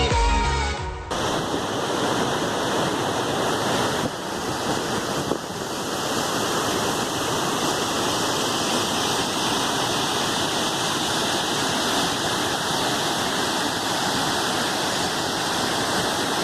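Steady rush of water, like a waterfall, after background music cuts off about a second in.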